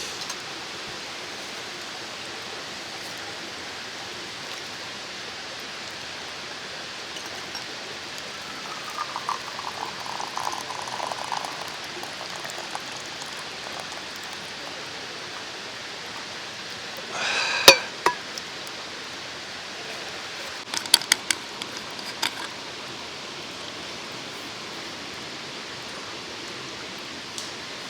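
Steady rush of a mountain stream, with liquid being poured for a couple of seconds about nine seconds in. A sharp clink comes a little past halfway, then a few lighter clinks soon after.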